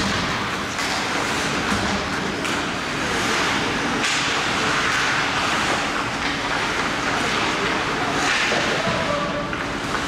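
Ice hockey game sounds in an arena: a steady din of crowd voices and skates scraping on the ice, with a few sharp clacks of sticks and puck.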